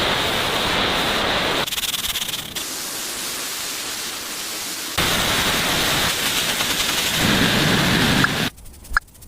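Loud, steady hissing noise that changes abruptly several times along the way and drops away near the end.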